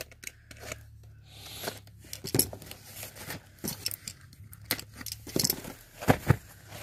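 A box cutter slicing through the tape on a small white cardboard box: irregular scratching and scraping of the blade on the cardboard, with a few sharp knocks as the box is handled, two of them close together near the end.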